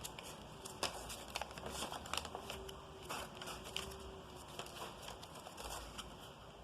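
Sheet of paper rustling and crinkling as it is folded and creased by hand, with scattered short crackles.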